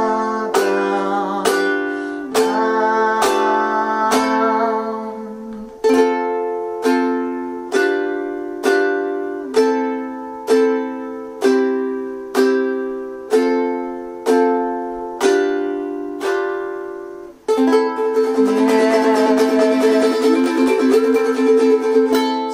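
Ukulele strumming slow chords of the ending, one strum about every second, each left to ring out. A little over 17 seconds in, it breaks into a fast tremolo strum held on a final A minor chord. A voice sings along over the first few seconds.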